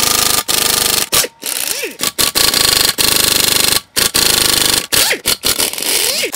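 Pneumatic impact wrench hammering in several bursts with short pauses, its pitch sweeping up and down as the trigger is worked. It is trying to break loose a Torx Plus bell-housing bolt on a 4L60E transmission that won't turn, and the bolt head is close to being stripped.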